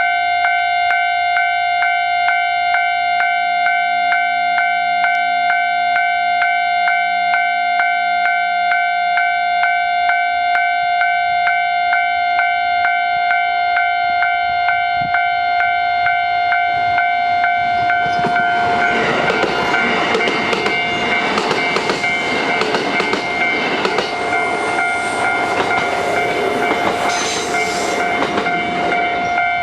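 Japanese level-crossing alarm bell ringing steadily in evenly repeated strokes. From about 18 s to 28 s, a Kintetsu 22000 series limited-express electric train passes over the crossing with the noise of its wheels on the rails. The bell keeps ringing throughout.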